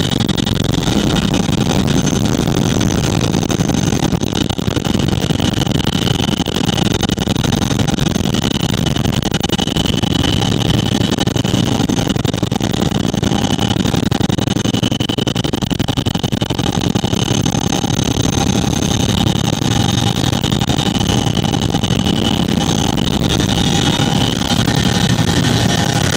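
Loud, steady cabin noise of a CH-47 Chinook helicopter in flight: the drone of its twin rotors and engines with a steady high whine over it.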